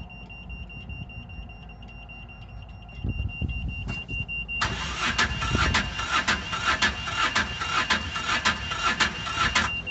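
Westerbeke 12-D diesel engine turned over by its starter for about five seconds, a fast rhythmic churning at roughly three to four beats a second that never catches. The owner takes the failure to start for no electricity reaching the new glow plugs. Before the cranking a steady high-pitched buzz sounds, which he calls "that buzz, that beeping".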